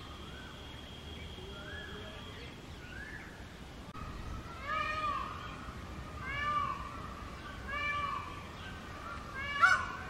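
Indian peacock calling: loud screams repeated about every one and a half seconds, each rising then falling in pitch, the last one near the end the loudest. Before these, in the first few seconds, a few fainter calls of the same shape.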